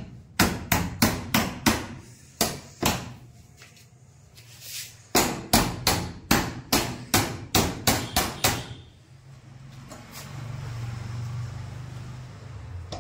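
Repeated sharp blows on a padlocked metal door latch, struck with a cloth-wrapped hard object in an attempt to break the lock. A quick flurry of strikes comes first, then a couple more, then after a pause a run of about ten at roughly three a second. Over the last few seconds a low steady hum follows.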